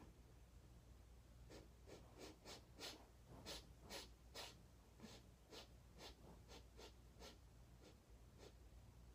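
Faint, quick, short breaths, about two or three a second, starting about a second and a half in and stopping shortly before the end.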